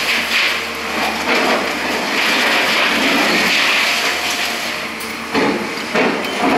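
Concrete and rubble crashing and clattering down as a Liebherr R944 demolition excavator rams a steel beam into a high-rise's walls, with a few sharper knocks near the end.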